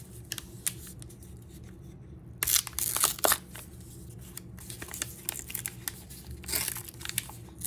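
Wrapper of a 2001 Topps Heritage football card pack being torn and peeled open by hand, crinkling in short crackly bursts. The loudest rips come about three seconds in.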